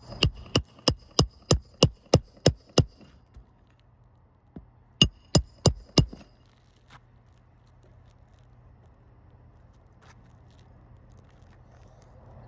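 Hammer blows ringing on metal, a roofing nail or the steel nail-cutting bar during a shingle repair: a quick, even run of about ten strikes, then after a pause of about two seconds four more.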